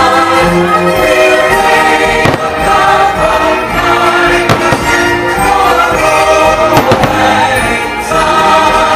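Loud show music with a choir singing, and fireworks shells bursting several times through it.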